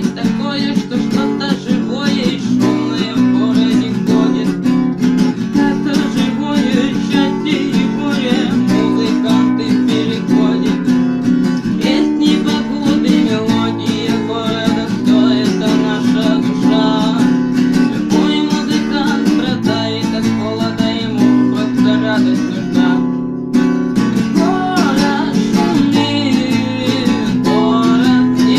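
Acoustic guitar strummed in a steady rhythm, chords ringing on with a short break about 23 seconds in.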